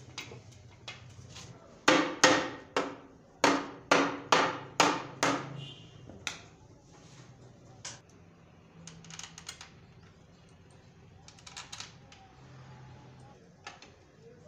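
Sharp metal knocks in quick succession, about eight of them, each ringing briefly, as the housing half of a Toyota A245E automatic transmission is seated onto the gearbox. After them come scattered lighter clicks and clinks of bolts and tools.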